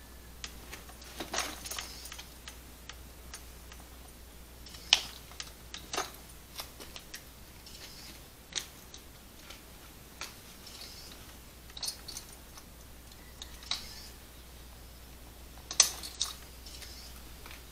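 Irregular metal clicks and clinks from the pins being pulled out of the lower frame of a hang glider cart, with the sharpest knocks about five, six and sixteen seconds in.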